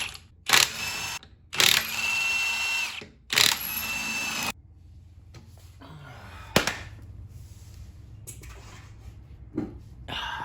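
Power tool, most likely an impact wrench, running in three bursts of about a second each as it loosens a car's wheel lug nuts, followed by a single sharp click.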